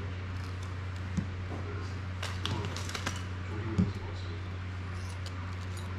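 Adhesive tape pulled off a roll in a few short rasping strokes about two to three seconds in, amid small clicks and taps of drone parts being handled on a cutting mat, over a steady low hum.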